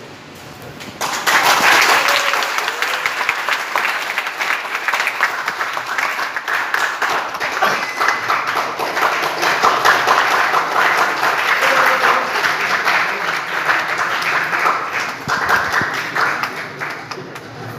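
Audience applauding in a large hall. The clapping starts about a second in and dies down near the end.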